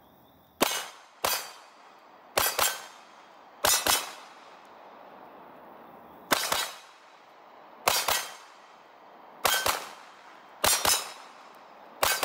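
Pistol shots from a Glock fitted with a Recover Tactical stabilizing brace, about fourteen in all, fired mostly in quick pairs a second or two apart, each shot trailing off briefly.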